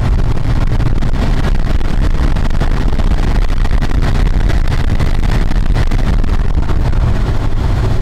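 Dodge W150 pickup engine running steadily after a repair to its wiring that had left it cranking but not starting.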